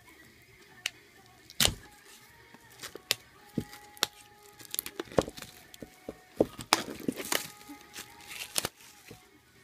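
Clear plastic wrapping and a seal sticker being peeled and torn off a boxed CD album: irregular sharp crackles and crinkles with several louder snaps.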